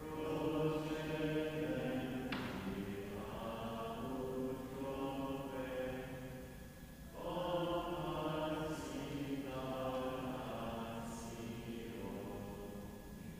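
Voices singing a slow chant in long held phrases, with a short break about seven seconds in.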